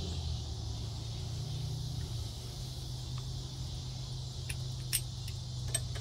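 Crickets chirping steadily over a steady low hum, with a few light metallic clicks in the second half as a bolt and washer are handled and fitted on the steel arm of a Strong Arm pottery tool.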